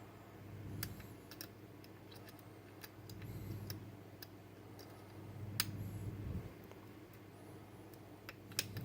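Sparse, irregular small metallic clicks and ticks of a lock pick working the spring-loaded sliders of a Bellock cam lock held under tension, over a low steady hum.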